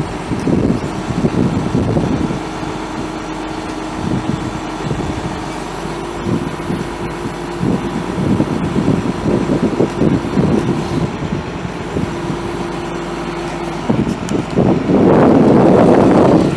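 Turbo diesel engine of a 1992 Ford F800 truck (Ford 210 7.8L inline-six) running, with uneven surges and a louder stretch shortly before the end.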